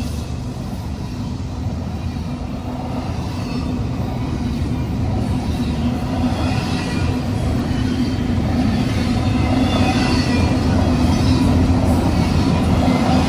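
Freight train rolling past: a steady rumble of wheels on the rail that grows gradually louder.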